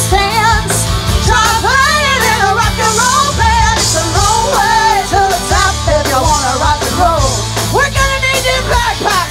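Live band playing through outdoor PA speakers: singing over drums and bass.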